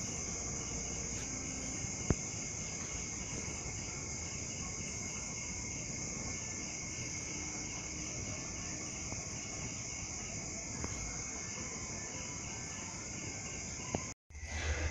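Insects trilling steadily on a high pitch, with one sharp click about two seconds in.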